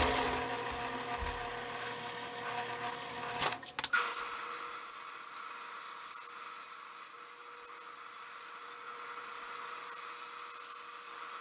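A power tool runs with a steady hum, then after a brief clattering break about three and a half seconds in, a band saw runs steadily with its narrow blade cutting a curve through plywood.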